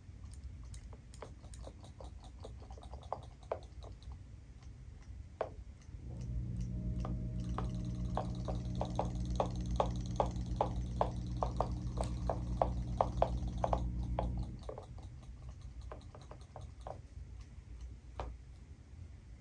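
Robotic fish toys swimming in a plastic tub of water, giving off a run of small ticks as their tails beat. From about six seconds in, a steady low hum joins for roughly eight seconds and the ticks come closer together and more evenly, then it drops back to scattered ticks.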